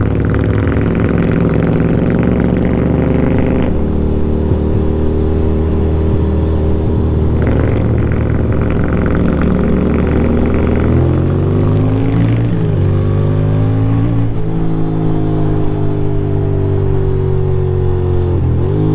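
Ducati Monster 620's air-cooled V-twin engine running under way, with a rushing hiss over it for the first few seconds and again around eight seconds in. In the second half it accelerates through gears: the pitch climbs and drops back at each upshift, about twelve and fourteen seconds in and again near the end.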